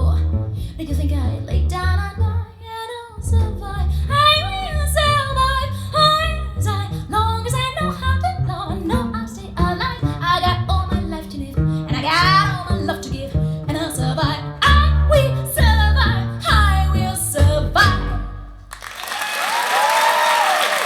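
Recorded pop song playing back, a voice singing over a heavy bass line and plucked guitar. About two seconds before the end the song drops out and a steady hiss-like noise with a faint wavering tone takes over.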